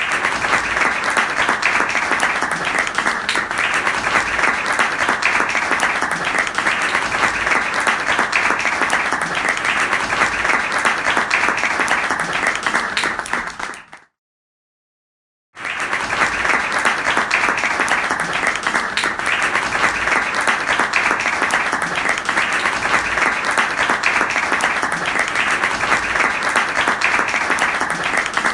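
Applause: many hands clapping together in a dense, continuous patter. It fades out and breaks off into complete silence about fourteen seconds in, and starts again about a second and a half later.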